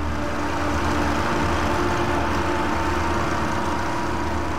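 Snowmobile engine running steadily while travelling over sea ice: an even drone with a thin, steady whine above it.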